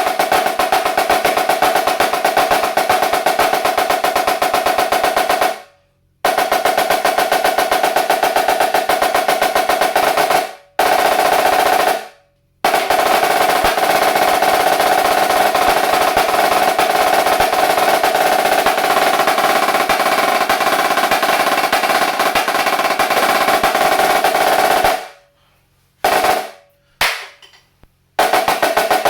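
Premier HTS 484 high-tension marching snare drum played in long, fast rolls, stopping briefly about six, eleven and twelve seconds in, then a long roll and a few short figures near the end. A steady ring sounds under the strokes.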